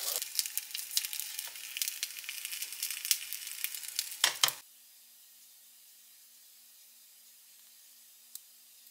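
Ramie-leaf red-bean rice cakes sizzling and crackling in a hot grill pan, with a couple of louder knocks as the pan is handled. The sizzle cuts off suddenly about halfway through, leaving only a faint hum.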